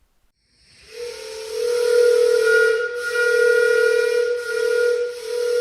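3D-printed 2.5-inch four-chime steam-whistle replica blown with compressed shop air from an air nozzle: a rush of air builds about half a second in, then several steady tones sound together over a strong low note, dipping briefly a few times. The chord sounds dissonant, more like a European horn than a steam whistle, which the maker puts down to the gap between aperture and bell lip probably being too small and the pitch variation too narrow.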